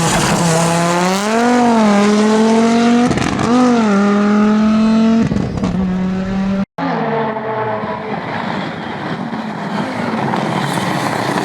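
Audi Quattro S1 rally car's engine running hard at high revs, its pitch surging up and back down twice, then holding steady. Past halfway the sound cuts out abruptly for an instant, then goes on as a rougher mix of engine and road noise.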